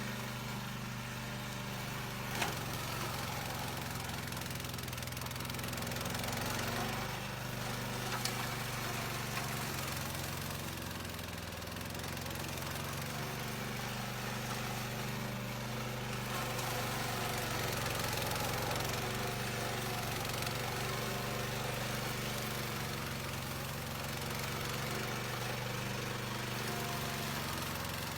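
Engine of a remote-controlled grass-cutting mower running steadily, its pitch shifting a little now and then, with two brief sharp clicks in the first third.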